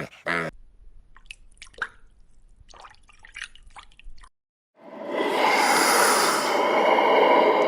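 Faint wet clicks and smacks like chewing, then a brief silence, then a horse starts a loud, long whinny about five seconds in.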